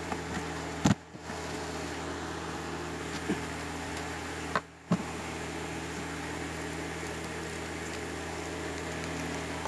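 Steady low hum and hiss, with a few small sharp clicks from handling the headset's plastic parts while tweezers pick out the rubber screw covers. The sound drops out briefly twice.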